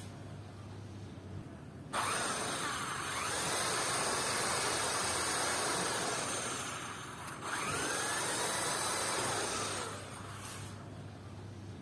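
Electric drill with a countersink bit boring into a pine frame to recess a screw head, running in two bursts: about five seconds, a brief stop, then about two and a half seconds more. The motor audibly rises in pitch as it spins up at the start of each burst.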